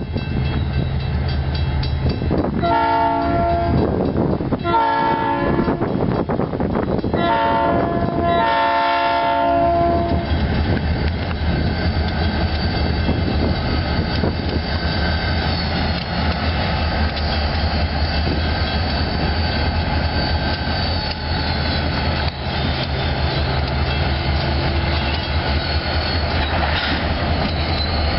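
Diesel freight locomotive's air horn sounding the grade-crossing signal: two long blasts, a short one and a final long one, about 3 to 10 seconds in. The locomotives' diesel engines rumble steadily as the train rolls past the crossing.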